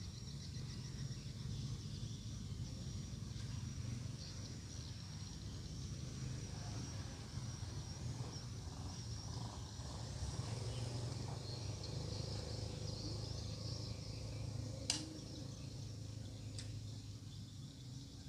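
Steady high insect buzz over a low steady hum, with a sharp click about fifteen seconds in and a fainter one a couple of seconds later.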